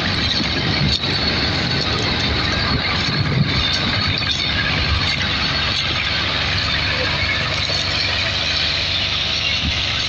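Farm tractor engines running steadily under load as two tractors haul a heavily loaded sugarcane trailer.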